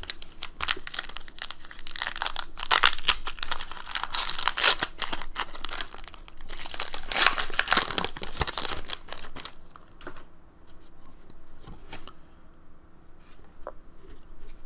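Foil Pokémon booster pack wrapper being torn open and crinkled for about nine seconds, then quieter scattered clicks as the cards are slid out and handled.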